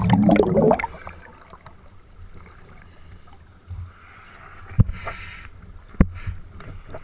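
Scuba divers' exhaled bubbles gurgling underwater for the first second, then the sound opens up above the lake surface: faint water lapping, with two sharp knocks about five and six seconds in.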